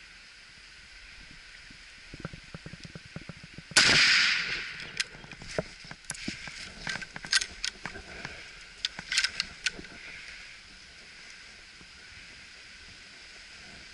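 A single rifle shot, most likely from a .375 Ruger, about four seconds in, dying away over about half a second. Scattered sharp clicks and rustles come before and after it.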